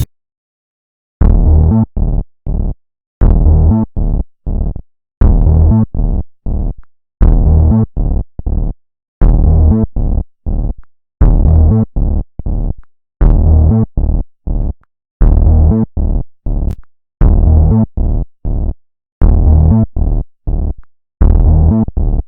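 Electronic music: a synthesizer pattern of one longer hit followed by two short ones, repeating about every two seconds with dead silence between the groups.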